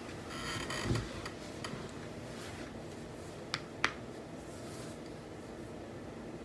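Steady background noise of a space heater running, with a rustle of clothing in the first second and two sharp clicks, a fraction of a second apart, about three and a half seconds in.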